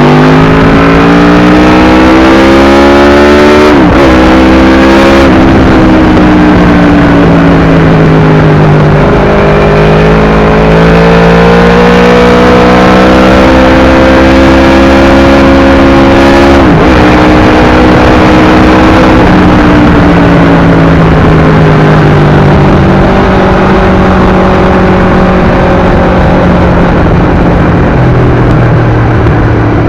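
Aprilia RSV4 RR's 1000 cc V4 engine through an SC-Project exhaust, very loud, pulling up through the gears. Its pitch climbs and drops sharply at upshifts about 4 and 17 seconds in, then eases down in steps near the end.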